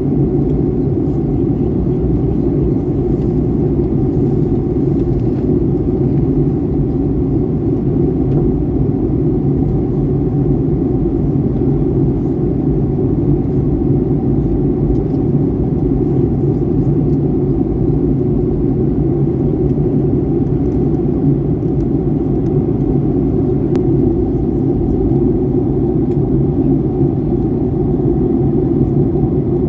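Steady roar of jet engine and airflow noise inside a Boeing 737-800 airliner's cabin during descent, low-pitched and unchanging.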